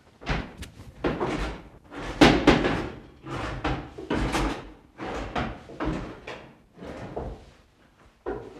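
Cupboard doors and drawers being opened and banged shut in a rapid, irregular run of knocks and clatter; the loudest comes a little past two seconds in.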